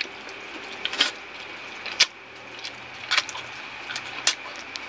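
Close-up eating sounds: a man chewing a handful of shrimp, noodles and rice, with sharp mouth clicks and smacks about once a second. A faint steady high whine runs underneath.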